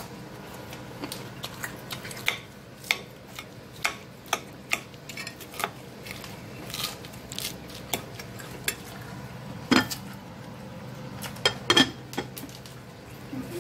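Metal spoon and fork tossing a dressed salad on a ceramic plate: irregular clinks and scrapes of the utensils against the plate, the loudest near the end.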